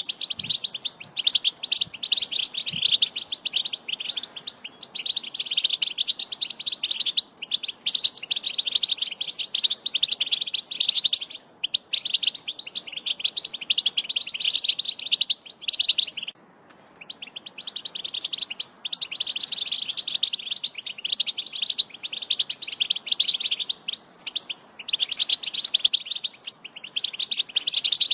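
European goldfinch song: a fast, continuous high-pitched twittering chatter, broken by a few short pauses.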